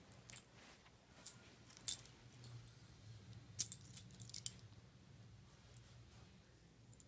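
A metal tag on a Shih Tzu's collar jingling in short clinks as the dog rolls and rubs on a bed: a few single jingles in the first two seconds, then a quick cluster of them between about three and a half and four and a half seconds.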